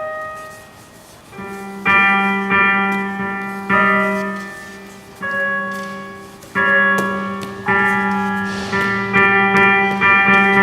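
Synthesizer music: single keyboard notes struck one after another, each with a sharp attack that fades away, over a steady low held drone.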